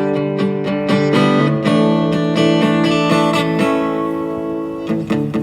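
Acoustic guitar strummed steadily, playing the chords of a song between sung lines.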